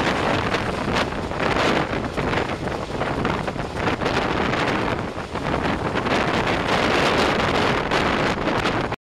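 Wind buffeting the microphone held out of a moving passenger train's window, over the running noise of the train on the track, in irregular gusts; cuts off suddenly near the end.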